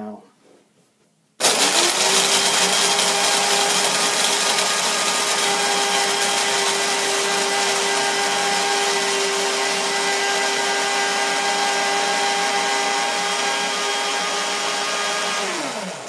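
Mr. Coffee IDS77 blade coffee grinder running a fine grind. It starts a little over a second in, runs steadily for about fourteen seconds, then drops in pitch and winds down near the end. It runs this long because run time is how this grinder sets its fineness.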